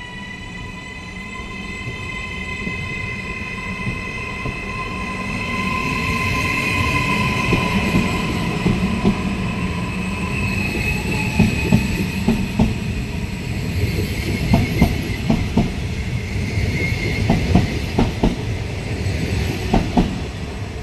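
Trenitalia 'Rock' double-deck electric train pulling away and gathering speed. Its electric drive gives a whine that slowly rises in pitch over a growing rumble. In the second half the wheels clack sharply and irregularly over rail joints.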